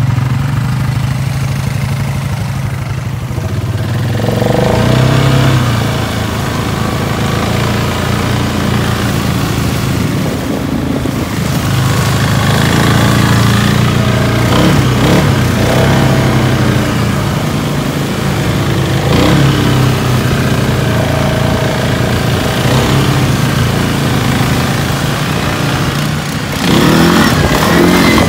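ATV engines running through shallow swamp water, revving up and down with water churning and splashing; they grow louder near the end.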